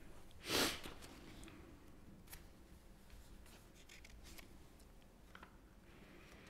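Papers being handled at a meeting table: a short rustle about half a second in, then faint scattered ticks and shuffles over low room noise.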